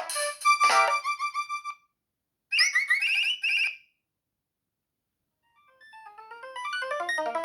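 Nokia mobile phone ringtones playing. A polyphonic melody ends with a few fading notes, then comes a short burst of chirping electronic tones. After a pause of about two seconds, a new ringtone melody starts quietly and grows louder near the end.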